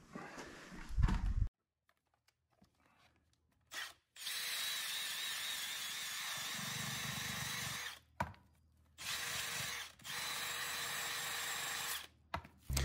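A thump about a second in, then a cordless drill spinning a sanding drum against a horse's hoof and glued-on shoe cuff: a steady whir in three spells, about four seconds, then one second, then two, with short stops between.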